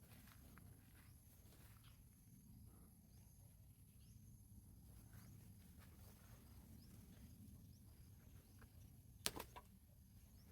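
Near silence with a faint low rumble. Near the end there is one sharp knock, followed a moment later by a fainter one.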